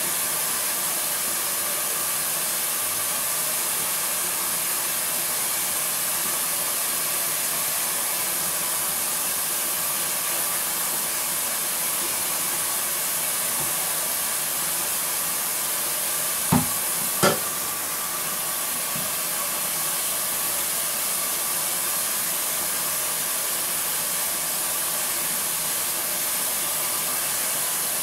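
Kitchen tap running steadily into a stainless steel sink while a blender jar is rinsed under the stream. Two sharp knocks come close together a little past halfway.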